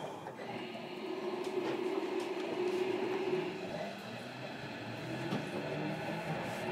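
Inside a JR Kyushu 305 series electric train car, heard from the floor above the brake control unit: a steady hum of underfloor equipment with a held mid-pitched tone. Near the end a whine starts to rise in pitch as the train begins to pull away.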